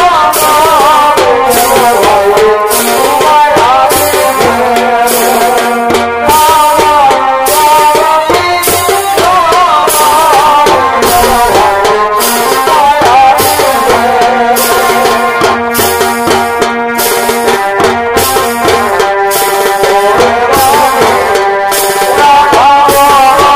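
Chhau dance music: a wavering, ornamented reed-pipe melody, in the manner of a shehnai, over steady drum strokes about twice a second, played loud through horn loudspeakers.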